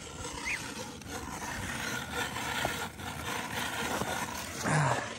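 Hand-cranked ice auger grinding into lake ice, a steady rasping scrape as the blades cut the hole, with a short louder burst near the end.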